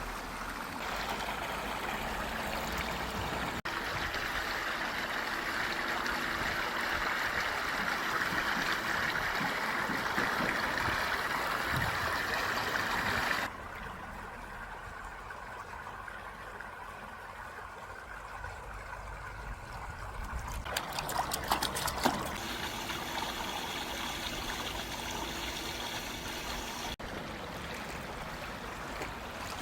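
Running, trickling water, as a steady rush that changes abruptly several times between clips. A cluster of sharp clicks or splashes comes about two-thirds of the way through.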